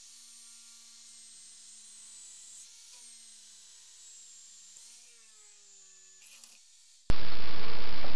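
Electric drill in a drill stand running with a steady whine while drilling holes through a metal tube, dipping in pitch a few times, then winding down and stopping about six and a half seconds in. Near the end a sudden, much louder steady rushing noise starts.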